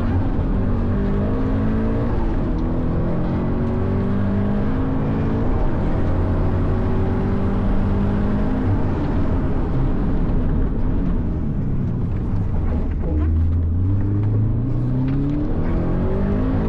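Turbocharged Subaru BRZ's flat-four boxer engine heard from inside the cabin, revving hard through the gears, easing off about halfway, then pulling up through the revs again near the end.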